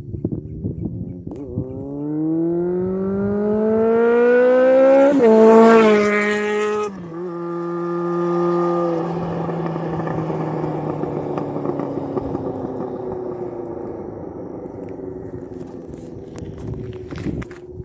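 Honda CBX 750 inline-four motorcycle engine revving up steadily for several seconds to a loud high peak, then dropping sharply in pitch about seven seconds in and settling into a steadier note that slowly falls and fades away.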